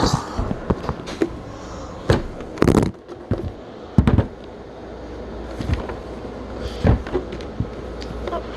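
Cardboard box being opened by hand and its contents handled: a string of separate sharp knocks and crackles with rustling between them, loudest about two to four seconds in.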